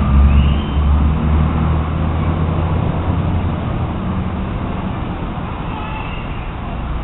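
Low rumble of road traffic going by, loudest in the first second or two and then easing off to a steadier hum.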